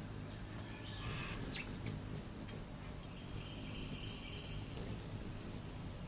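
A songbird calls for about a second and a half in the second half, a few notes held at a steady high pitch, over a steady low background hum. A brief rushing noise comes about a second in.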